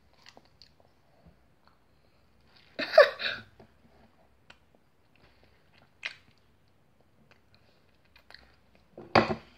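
A person eating a small taste of sauce: faint mouth clicks and chewing, with a loud short vocal sound about three seconds in, a brief sharp one around six seconds, and another loud one near the end.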